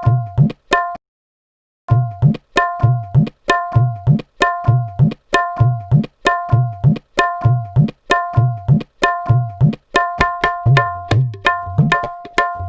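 Tabla playing a repeating rhythm: ringing, pitched strokes on the treble drum (dayan) alternating with deep bass strokes on the bayan that bend upward in pitch. After a pause of about a second near the start the cycle resumes, and the strokes come quicker near the end.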